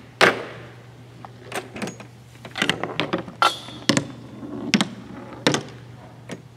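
Irregular sharp knocks and clacks of small wooden and plastic parts in a tabletop chain-reaction machine being run as a test, about eight of them spread across several seconds, with a short sliding hiss about three and a half seconds in. A steady low hum runs underneath.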